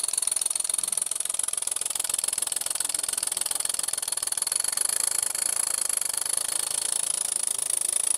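Handmade model six-cylinder V marine steam engine running on compressed air at very low pressure: a very fast, even beat of exhaust puffs over a steady high hiss of air.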